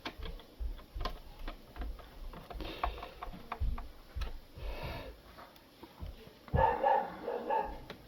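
Scattered small clicks and knocks of a screw being fitted and driven into a coffee machine's plastic housing. Near the end comes a brief run of short pitched sounds, the loudest thing here.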